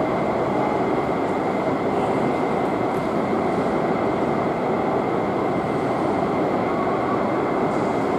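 Twin turbofan engines of a taxiing Boeing 767-300ER airliner at low taxi power: a steady rush of noise with a thin, high, even whine.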